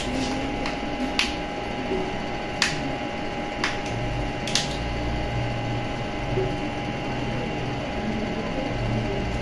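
Short sharp clicks and taps, about six in the first five seconds, as a small plastic circuit breaker is handled and its terminals are worked with a screwdriver. Under them runs a steady hum with a faint high whine.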